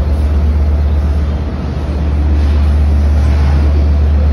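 Standing diesel-hauled commuter train, its DE30AC locomotive's engine idling with a loud, steady low drone that grows a little louder about two seconds in.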